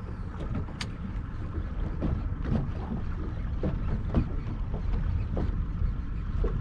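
Ambience aboard a small fishing boat on the water: a steady low rumble with light, irregular slaps and knocks scattered through it.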